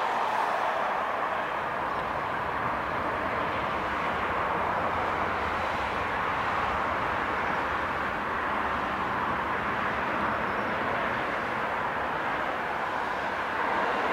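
Jet engines of an Airbus A320-family airliner rolling on a runway, heard from a distance as a steady rushing noise.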